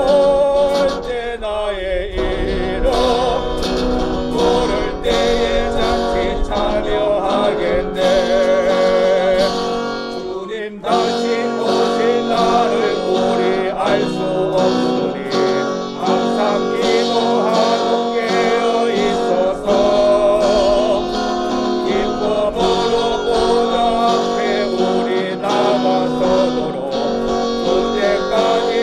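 Live church praise music: a gospel hymn sung over band accompaniment that includes guitar, with a short dip in level about ten seconds in.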